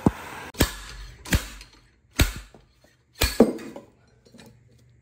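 Slide hammer on a steering-wheel puller striking its stop: a run of about five sharp metal-on-metal clanks, each with a short ring, under a second apart. It is driving a heat-seized camshaft gear off a 12-valve Cummins, which is barely moving.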